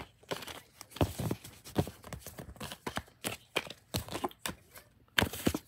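A deck of tarot cards being shuffled by hand: an irregular run of soft card taps and riffles, several a second, with a short pause near the end.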